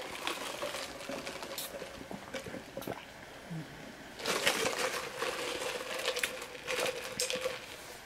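Light clicking and crinkling of a clear plastic drink cup and its straw being handled. The clicks grow busier and louder about halfway through, over a faint steady hum.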